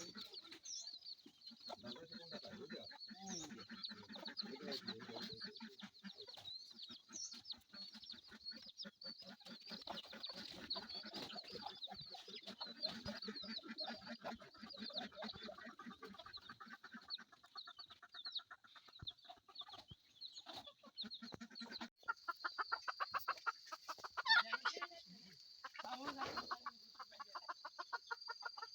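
A flock of hill chickens clucking, many short calls overlapping throughout. A steady high-pitched whine sits behind them and grows louder in the last few seconds.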